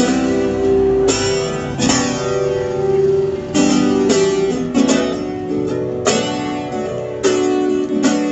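Live band music with no vocals: a guitar strumming chords, each chord struck hard and left to ring, about one a second.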